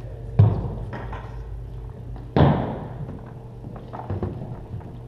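Two sharp stamps of drill boots on a wooden gym floor, about two seconds apart, each echoing through the large hall, with a few lighter footfalls between them over a low steady hum.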